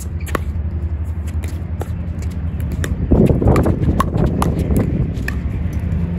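Wind buffeting the microphone, with the sharp, irregular pops of pickleball paddle hits and ball bounces on the court. A stronger gust comes about three seconds in.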